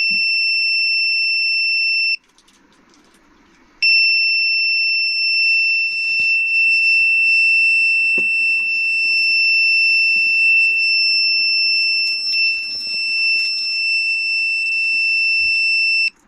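Buzzer alarm of a digital timer's float-switch controller giving a steady high-pitched tone, signalling low water level. It sounds for about two seconds, stops briefly, then sounds continuously for about twelve seconds before cutting off suddenly.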